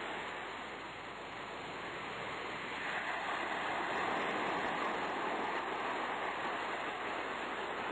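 Rushing sea-surf sound, a steady wash of noise that swells gently over the first few seconds and then holds.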